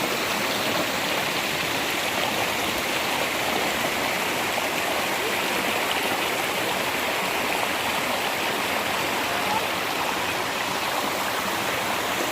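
Stream flowing: a steady, even rush of running water.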